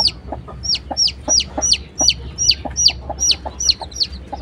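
Newly hatched native chicken chicks peeping: a steady run of high, short peeps that slide down in pitch, about three a second.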